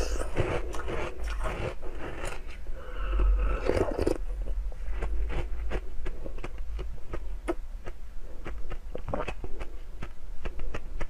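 Close-up crunching of a block of frozen milk ice being bitten and chewed, the teeth cracking and scraping the ice in a dense run of crackles for the first few seconds, then sparser crunches as she chews.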